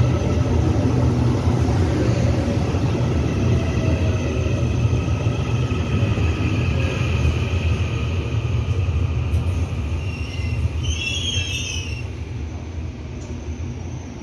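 Taiwan Railway EMU800 electric multiple unit rolling into the platform and slowing: a steady rumble of wheels on rails with a faint whine, fading over the last few seconds as it nears a stop. There is a brief high squeal about eleven seconds in.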